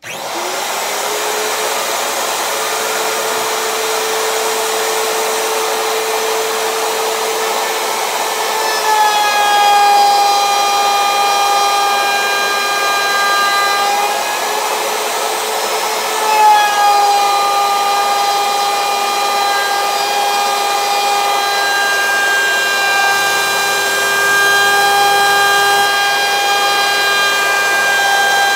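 Router in a benchtop router table switching on with a loud high whine, then routing a slot in a pine board: its pitch dips slightly as the bit bites into the wood about nine seconds in, eases for a couple of seconds in the middle, and dips again as the cut resumes.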